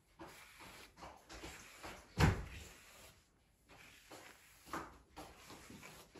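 Soft brushing strokes through long wet hair, several faint scrapes, with one dull thump about two seconds in.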